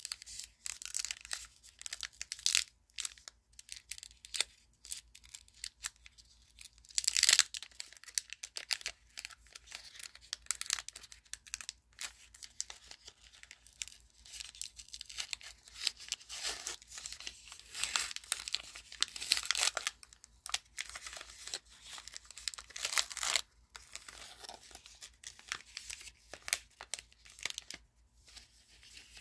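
Baseball card pack wrappers being torn open and crinkled, with the rustle and flick of cards being handled. The crackling comes in irregular bursts, the loudest about seven seconds in.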